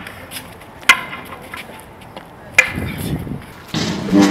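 Two hard clacks of quarterstaffs striking each other in a sparring exchange, about a second and a half apart, each with a short ringing tail. Music fades in near the end.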